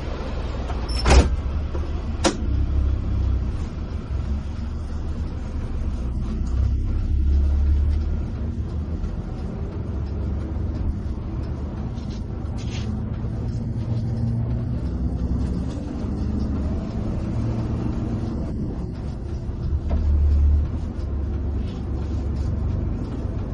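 Steady low rumble of a tour bus's engine and tyres heard from inside the cabin while the bus drives along the highway. Two sharp knocks come about a second in and just over two seconds in. Through the middle a faint hum slowly rises in pitch and then falls.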